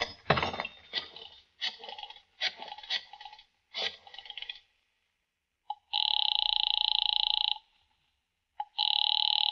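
A telephone ringing at the other end of the line in a radio-drama scene: two rings of about a second and a half each, the first about six seconds in and the second near the end. Before them come a few seconds of short, choppy bursts of thin, filtered sound.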